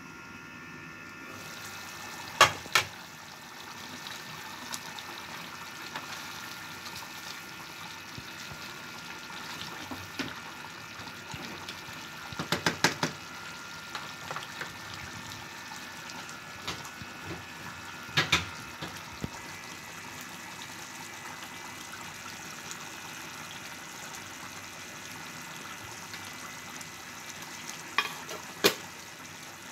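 Chicken curry simmering in a pan: a steady bubbling hiss, broken by a few sharp clinks and knocks of the pan and its glass lid, a pair early, a cluster a little before the middle, one more shortly after, and two near the end.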